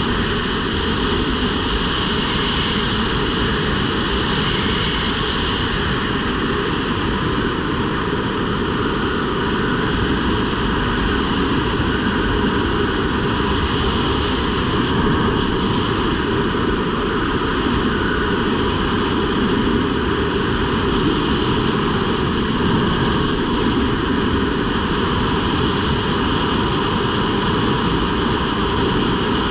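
Steady rush of wind over a skydiver's helmet camera during the descent, loud and unbroken throughout.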